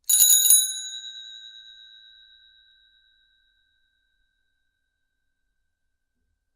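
Chinese bicycle bell rung with one quick trill of rapid strikes lasting about half a second, its ring then fading out over about three seconds.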